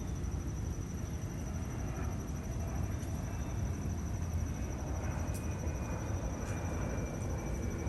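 Steady low rumble of outdoor background noise with a faint constant high-pitched whine over it and a few faint ticks.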